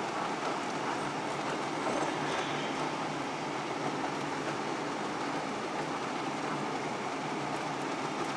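Steady road noise of a moving car heard from inside the cabin: tyres and engine running evenly.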